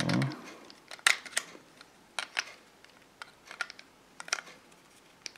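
Hard plastic clicks and light scrapes as a 7.4 V 2200 mAh battery pack is fitted to the back of a TYT MD-680 handheld radio and latched in place. There are about eight sharp clicks, irregularly spaced, after a short handling thump at the start.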